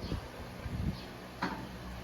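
Soft handling noises from a travel kit being opened: a faint rustle and a light click about a second and a half in, over a low steady hum.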